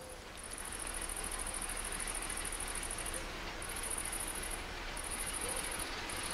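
Insects trilling high-pitched in long runs of a second or more with short breaks between, over a faint steady low rumble.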